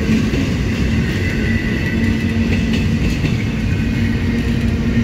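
Norfolk Southern freight train's double-stack container well cars rolling past close by: a loud, steady rumble of steel wheels on the rails.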